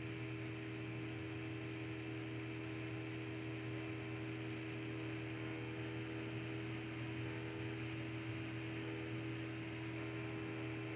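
Steady electrical hum with a low hiss underneath, unchanging throughout: the background noise of the recording setup during a pause in speech.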